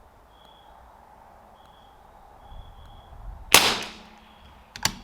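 A single shot from a CZ 457 AT-ONE bolt-action rimfire rifle firing .22 LR match ammunition, about three and a half seconds in, with a short ringing tail. A few sharp clicks follow near the end.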